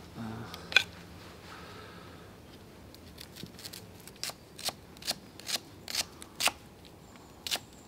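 An onion being cut with a knife: a series of crisp, short snaps, roughly two a second, as the blade goes through the layers.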